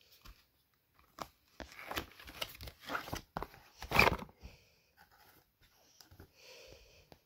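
Cardboard box and a fabric knee brace being handled: a string of short rustles and scrapes, the loudest about four seconds in, then fainter rustling of the fabric.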